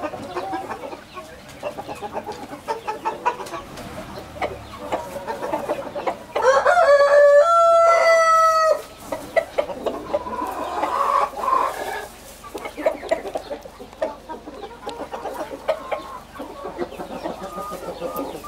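Blue Australorp chickens clucking softly as they peck at greens. About six seconds in, a rooster crows once, loudly, its call rising and then held for about two and a half seconds.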